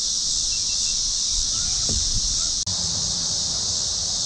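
Steady high-pitched chorus of insects, broken by a momentary dropout about two and a half seconds in.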